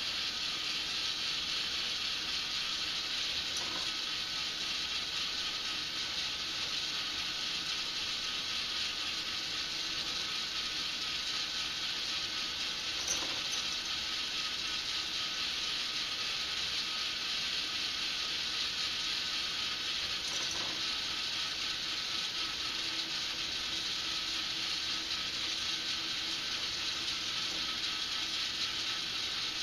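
Motorized K'nex ball machine running steadily: its small motor, gears and chain lift make a constant mechanical whir, broken by a few short sharp clicks.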